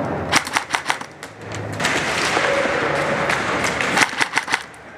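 Airsoft guns firing two quick bursts of sharp clicking shots, one just after the start and one about four seconds in, with a steady rushing noise between them.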